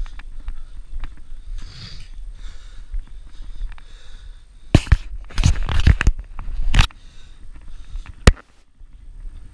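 Climbing a metal tower ladder, heard from a body-worn camera: light clicks and knocks of hands and shoes on the rungs over a low wind rumble. Midway comes a run of loud crackling bursts lasting about two seconds, and near the end there is one sharp knock.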